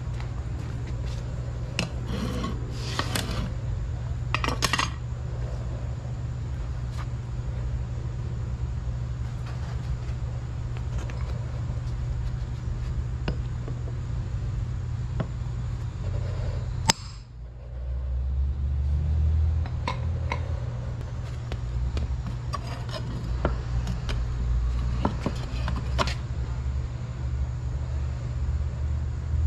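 Steel tongs clinking and scraping against a freshly cast copper ingot on a concrete paver, in scattered knocks and rubs. A steady low rumble runs underneath.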